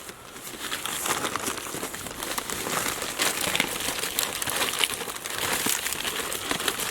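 Plastic tarp crinkling and rustling, an irregular crackle as it is handled and rigged.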